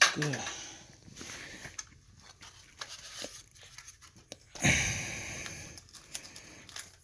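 Parts being handled: a plastic parts bag rustling and crinkling, with one louder crinkle about two-thirds of the way through and small clicks and knocks around it. A short vocal sound at the very start.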